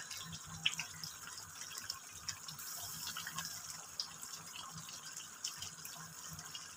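Chicken karahi gravy of chicken and tomato bubbling and sizzling in a metal pan on a gas flame: a steady hiss with many small scattered pops and crackles.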